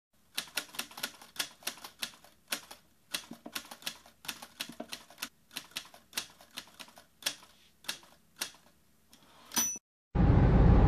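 Typewriter sound effect: irregular key clacks, about three or four a second, then a short ringing ding near the end. Music with drums comes in loudly right after.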